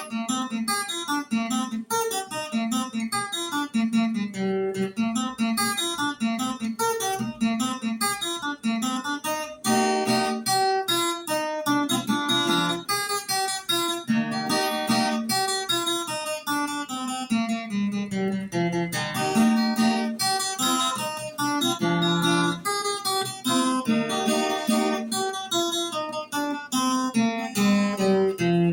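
Viola caipira, the Brazilian folk guitar with five doubled steel-string courses, played as an unbroken run of quickly plucked melody notes over lower notes, with some strumming.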